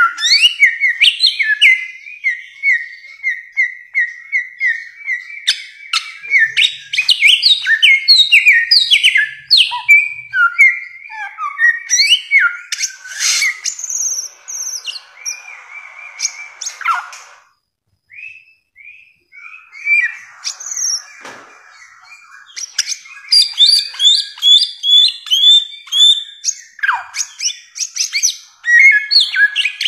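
Bare-throated whistler (samyong) singing a long, varied song of loud whistled notes that slide up and down. Near the start comes a quick run of repeated notes on one pitch, and there is a brief pause a little past the middle.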